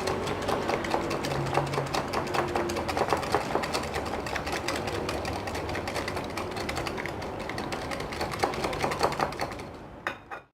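An egg being beaten into brown sugar in a bowl: a rapid, steady clicking of the utensil against the bowl, stopping about a second before the end.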